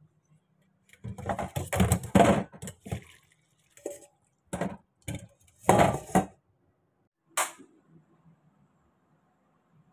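Soaked noodles and their water tipped from a steel bowl into a stainless mesh strainer in a steel sink: splashing and clattering of metal on metal in several bursts, then one short clank about seven seconds in.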